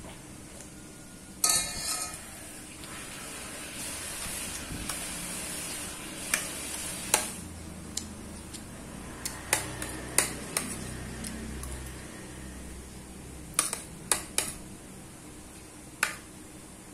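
Metal spoon scraping and clinking against a ceramic plate while scooping up fried rice. There are short scrapes and about a dozen sharp, irregular clinks.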